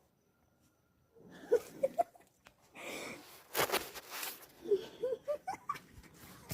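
Breathy, wheezy laughter and giggling in short broken bursts, starting after about a second of near silence.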